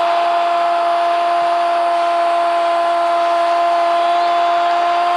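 A football commentator's long held goal cry ("gooool") at one steady pitch, over stadium crowd noise; the cry lifts slightly in pitch near the end.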